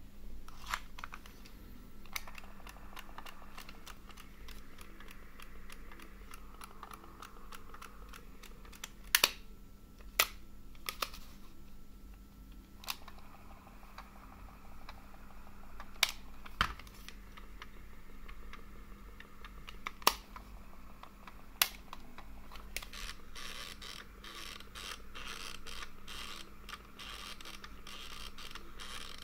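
Sony Walkman WM-DD2 cassette mechanism running faintly, with irregular sharp clicks and a denser crackle near the end: the clicking that is the sign of a broken central gear.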